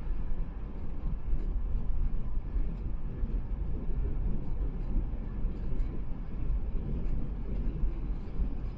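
Car travelling at expressway speed: a steady low rumble of tyre and road noise with engine drone.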